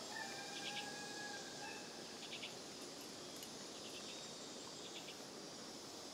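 Insects chirping in short, rapid pulsed bursts every second or so over a steady outdoor hiss, with one even whistle-like tone held for about a second and a half near the start.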